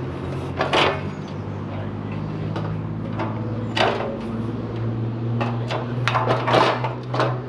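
Several sharp knocks and clanks of thin metal garden-bed panels being handled during assembly, the last few bunched together near the end, over a steady low hum.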